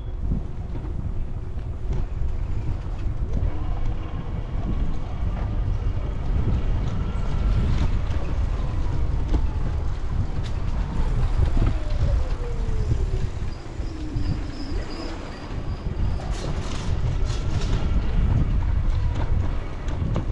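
Steady low rumble of travel over brick paving with wind on the microphone. A faint tone slowly rises and then falls through the middle, and a few sharp rattling clicks come near the end.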